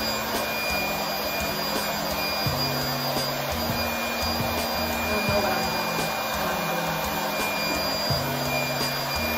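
Handheld hair dryer blowing steadily, aimed at a plastic shower cap to heat the hair colour underneath, with background music playing low underneath it.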